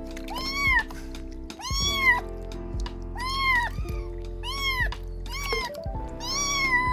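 Kittens meowing repeatedly, about six short high-pitched meows rising and falling in pitch, over steady background music.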